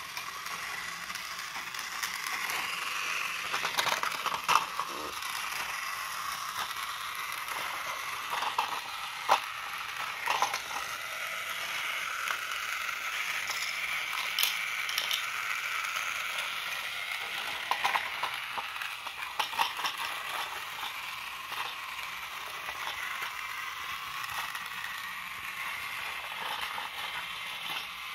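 Battery-powered Tomy Thomas toy train running on plastic track. Its single small electric motor and gears whir steadily, driving the set's loading mechanisms, with several sharp plastic clicks and clacks scattered through the middle.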